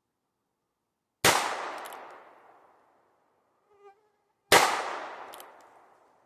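Two shots from a short-barrelled Heritage Barkeep revolver firing .22 Magnum, about three seconds apart. Each is a sharp, loud crack that trails off over about a second and a half.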